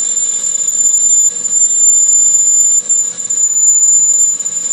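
One-inch twist drill boring into a spinning stainless steel workpiece on a metal lathe: a loud, steady, high-pitched squeal over the low running noise of the machine.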